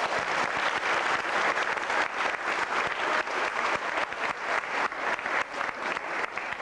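A crowd applauding: many hands clapping at once in a steady, even patter.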